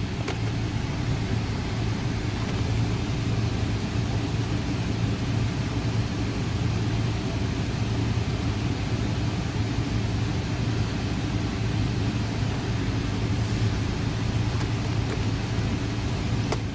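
Car running with a steady low drone, cutting in and out abruptly.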